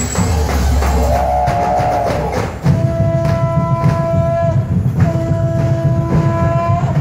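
Percussion-band music from the Ati-ati street-dance tribe, with drums throughout. A wavering tone sounds over the drums about a second in, and from about the middle a long held tone rides over the drumming, breaking off briefly once and then resuming.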